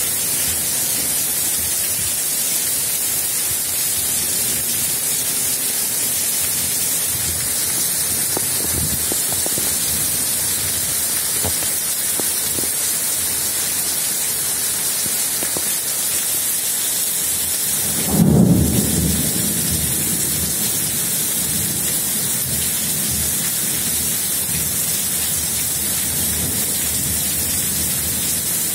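Heavy rain hissing steadily in a downpour. About two-thirds of the way through, one loud thunderclap booms and rumbles away over a couple of seconds.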